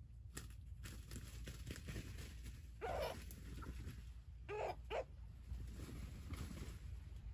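Three short animal calls: one about three seconds in and a quick pair a second and a half later, over a steady low rumble.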